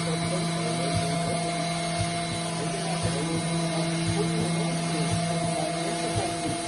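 Emmegi Phantomatic Isola T4 CNC machining centre running: a steady hum and whine with a faint low knock repeating about twice a second.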